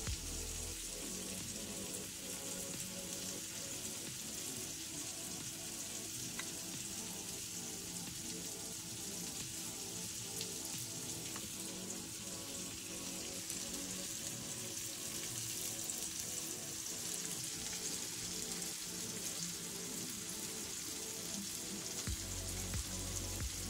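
Mixed vegetables sizzling steadily as they sauté in a frying pan, with soft background music underneath.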